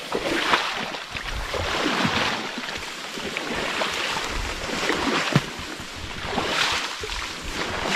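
Brush and tall grass swishing against clothing and a backpack as a person walks through dense vegetation, swelling and fading every second or two, with a few sharp snaps of twigs.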